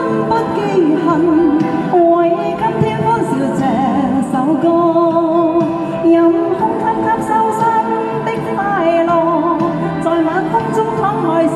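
Backing-track music with a wavering lead melody over a steady accompaniment: an instrumental break between verses of a song.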